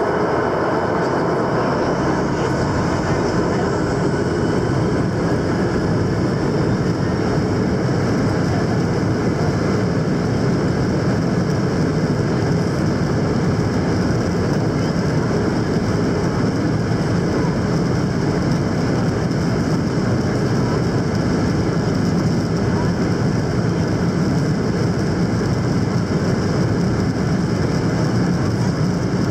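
Steady jet engine and airflow noise heard inside the cabin of a Boeing 737-800 airliner, with its CFM56 turbofans running. The sound holds at an even level without rising or falling, with a few faint high whines over the low rumble.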